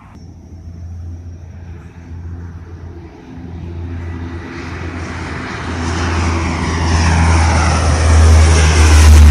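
Lockheed C-130H Hercules' four Allison T56 turboprop engines at takeoff power as it climbs out overhead. A low propeller drone grows steadily louder, with a sweeping whoosh as it nears.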